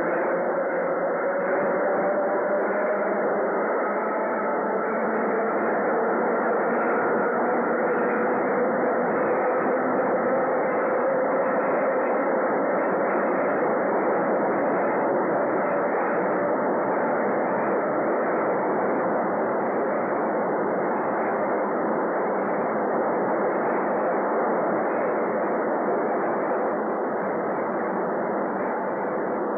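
Elevated railway train running along its steel structure: a steady rumble and rattle of wheels on rails, with a faint whine that rises slightly in pitch over the first few seconds.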